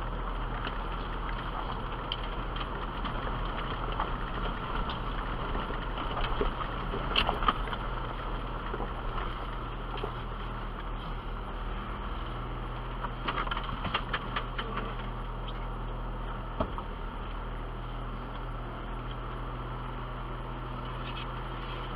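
Jeep engine running steadily at low revs as it crawls down a rocky, rutted off-road trail, with scattered knocks and rattles, the loudest about seven seconds in and a cluster a few seconds later.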